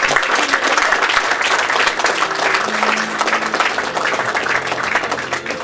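Audience applauding, dense hand-clapping, with instrumental music coming in underneath about two seconds in.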